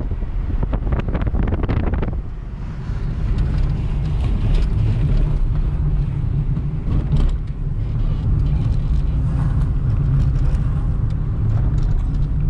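Steady low rumble of a vehicle driving, with wind buffeting the microphone in gusts during the first two seconds.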